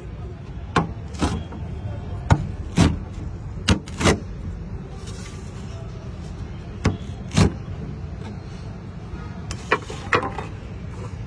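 A steel rocker pizza cutter knocking down onto the plate as a pizza is sliced: sharp knocks, mostly in pairs about half a second apart, every couple of seconds, over a steady low hum.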